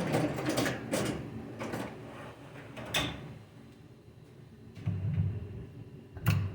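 Metal parts of a TorqueFlite 727 automatic transmission being handled during teardown: a few scattered sharp clicks and knocks, a second or more apart.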